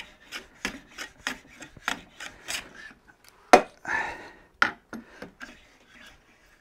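No. 5 bench plane taking short, quick strokes across the edge of a small piece of wood held in a vise, each stroke a brief rasp, about three a second. A sharp knock about halfway through, then a few fainter strokes.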